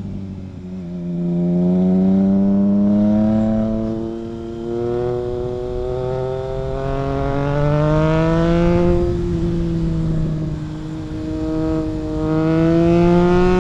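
Triumph Trident 660's inline three-cylinder engine accelerating under load through a loud custom exhaust that has no dB killer fitted. The pitch climbs steadily for several seconds, eases off briefly, then rises again near the end.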